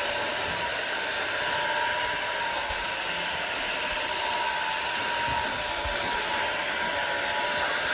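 Dyson PencilVac cordless stick vacuum running steadily: the whine of its very high-speed Hyperdymium motor and a rush of air, with the counter-rotating cone brush bars working as it is steered across the floor.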